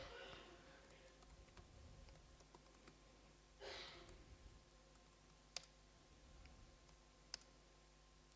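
Near silence with faint keystrokes on a computer keyboard as a terminal command is typed, two sharper key clicks near the end and a breath into the microphone about three and a half seconds in.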